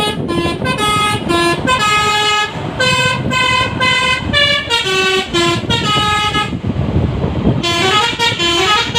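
Basuri telolet musical horn on a tour bus playing a rapid multi-note tune, the notes changing several times a second. About three-quarters of the way through it breaks off for roughly a second, leaving only road and engine noise, then starts again.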